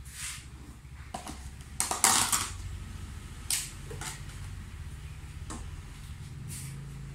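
Kitchen handling noises: a few short clatters and rustles as things are moved about on the countertop, the loudest about two seconds in, over a steady low hum.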